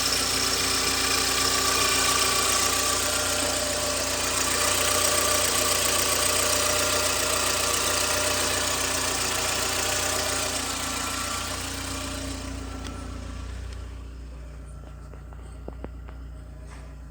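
VW Gol G5 engine running steadily at idle with a noise the owner suspects is abnormal and puts down to the mineral 20W50 oil in it. About twelve seconds in, the engine sound fades down to a low hum with a few faint clicks.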